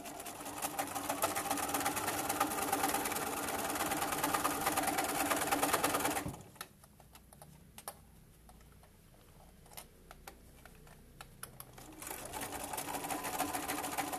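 Electric sewing machine stitching a seam: it runs steadily for about six seconds, drops to a few separate stitch clicks, and runs again from about twelve seconds in. The slow single stitches come where the needle goes through many thick layers of fabric and zipper, taken slowly so the needle doesn't break.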